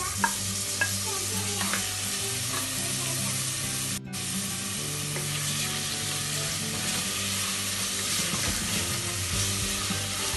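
Chopped tomatoes landing in hot oil and sautéed onions in a pressure cooker and sizzling steadily as a wooden spoon stirs them, with a few clicks and knocks in the first couple of seconds. The sound drops out for an instant about four seconds in.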